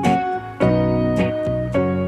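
Background instrumental music: keyboard or guitar notes and chords struck about twice a second.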